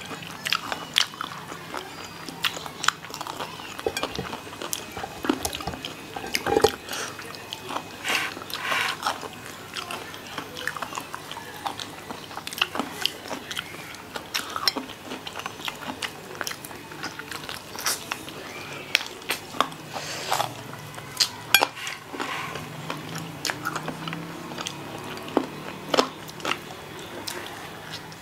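Two people biting into and chewing fried chicken: a steady run of irregular crunches and sharp mouth clicks.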